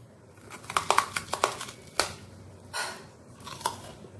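Biting into and chewing a crisp murir moya, a puffed-rice ball bound with sugarcane jaggery: a quick run of sharp crunches in the first two seconds, then a few more as it is chewed. The crunching is the sign of a well-set, crispy moya.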